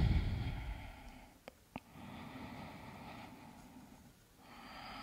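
Soft, slow breathing by a woman, heard as separate long breaths a couple of seconds apart. Two faint clicks come about a second and a half in.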